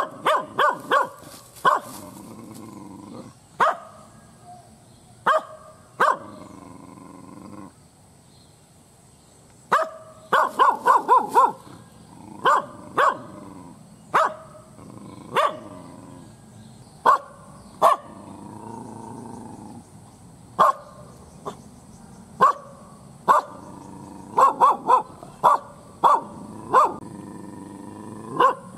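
An Indonesian village dog (anjing kampung) barking loudly and angrily at the camera, in single sharp barks every second or so. There are three quick runs of four or five barks: near the start, about ten seconds in, and just before the end. The barking breaks off for about two seconds around eight seconds in.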